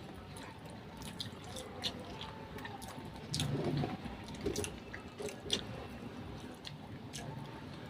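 Close-up eating sounds: wet smacking, sucking and chewing of seafood in butter sauce, with many scattered sharp clicks and crackles.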